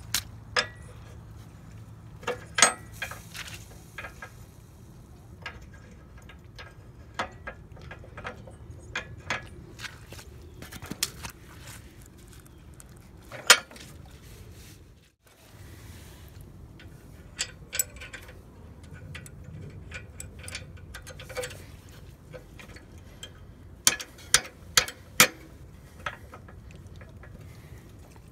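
Scattered sharp metal clinks and knocks as a steel carriage pin and its hardware are handled and fitted into a disc harrow's clevis, over a steady low background noise.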